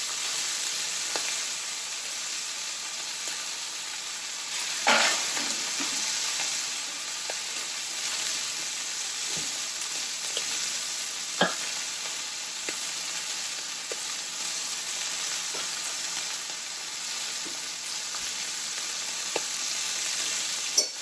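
Eye of round steaks searing in hot vegetable oil in a cast iron skillet: a steady sizzle, with a louder flare about five seconds in and a few brief sharp pops and clicks, the sharpest a little past halfway.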